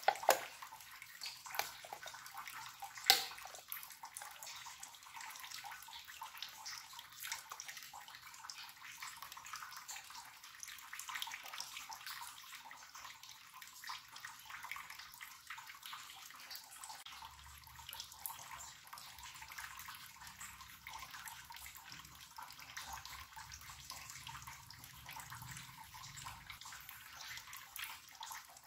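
Faint steady hiss, with a few sharp metallic clicks in the first three seconds, the loudest about three seconds in, as the ring-pull lid of a can of sweetened condensed milk is opened.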